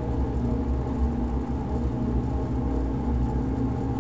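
Ambient electronic music slowed five times by granular time-stretching: a dense, steady drone of held low tones, heaviest in the bass.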